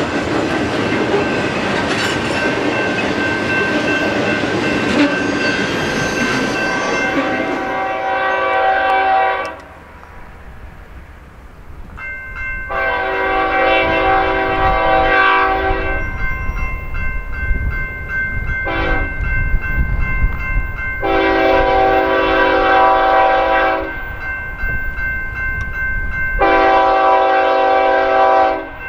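Freight train cars rolling past close by, with a steady rumble and clatter of steel wheels on rail that ends about a third of the way in. An approaching diesel locomotive then sounds its multi-note air horn in separate blasts: long ones, one very short one, then two more long ones, over a low engine rumble.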